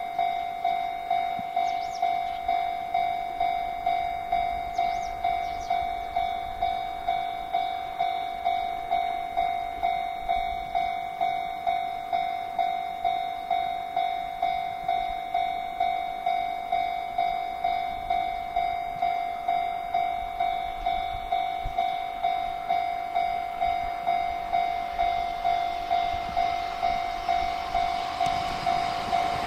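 Japanese railway level-crossing warning bell ringing, an electronic clang repeating evenly about twice a second at a steady pitch: the crossing is closed and a train is approaching.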